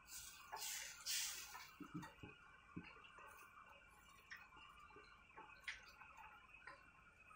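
Wooden spatula stirring thick rice-flour batter in a steel wok, heard as faint scraping with scattered light ticks and clicks. Two brief louder scrapes come in the first second and a half.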